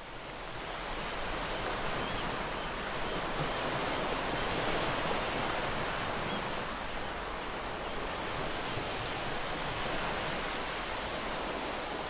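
Ocean surf washing onto a beach, a steady dense rush of breaking waves that swells up over the first second or two.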